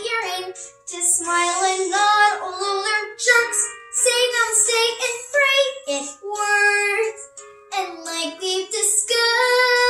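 A young girl singing a show tune in phrases, ending on a long held note near the end.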